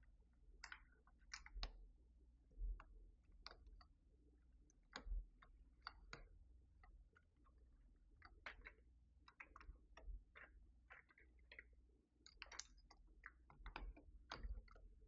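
Faint, irregular plastic clicks and taps from handling the keycaps and keys of a Keychron V6 Max mechanical keyboard, a few scattered clicks a second at most.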